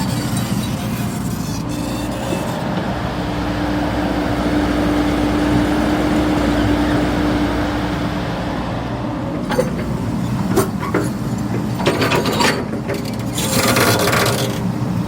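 Heavy diesel machine engine running steadily, with a steady tone swelling in the middle and a run of sharp metallic knocks in the last few seconds.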